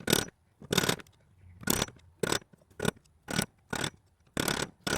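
Hammer peening down the inside ends of rivets in a 1956 Studebaker Hawk door's window channel: a run of about nine sharp metal blows, roughly two a second. The rivet ends are being flattened so the side glass won't catch on them as it slides up and down.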